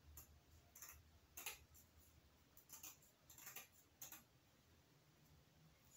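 Faint, scattered clicks and rustles of a rhinestone mesh ribbon being handled, about half a dozen soft crinkly ticks.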